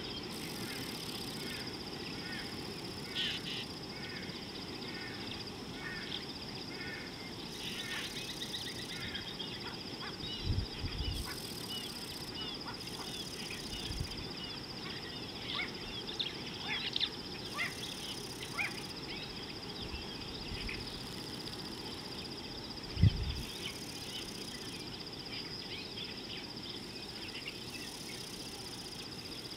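Wild bird calls, many short chirps and some honking calls, over a steady high insect drone, with a few low thumps, the loudest about two-thirds of the way through.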